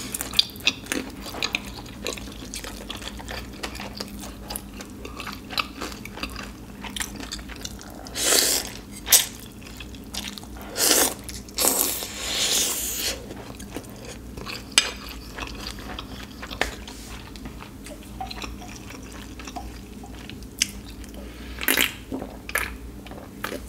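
Close-miked eating: steady chewing with small wet clicks, several long slurps of ramen noodles in the middle, and a drink sipped from a can near the end.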